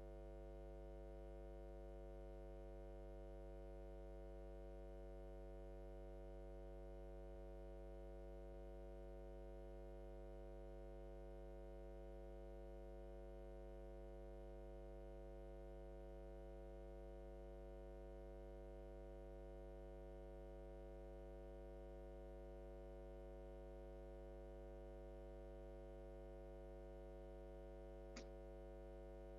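Near silence with a steady low electrical hum, a mains-type buzz in the audio line; one faint click near the end.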